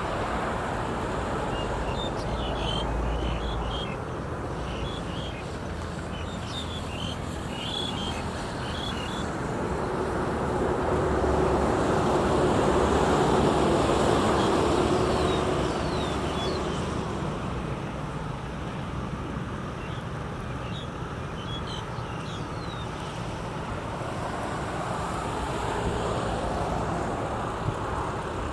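Rural evening ambience: a vehicle passes, its engine rising and then fading over several seconds about a third of the way in, over a steady outdoor background, with short bird chirps at the start and again later.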